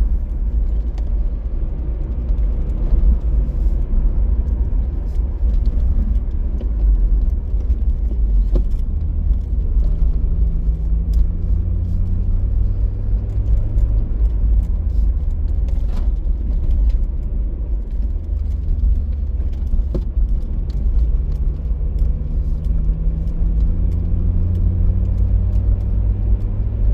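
A car driving, with steady engine and road rumble. The engine note rises twice as the car speeds up, about ten seconds in and again near the end.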